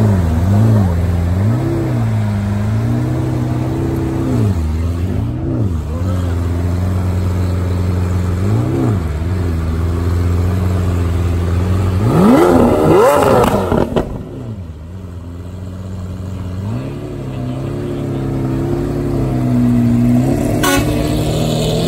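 Car engine idling and being revved in short throttle blips several times. About twelve seconds in it is revved harder and higher, then cuts off suddenly and settles back to a quieter idle.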